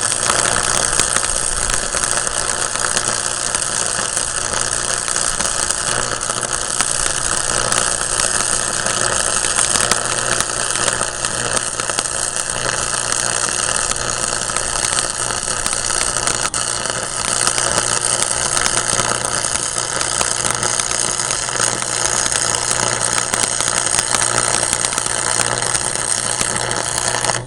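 Stick (arc) welder's arc burning continuously: a steady crackling hiss over a low electrical buzz, cutting off abruptly near the end as the arc is broken.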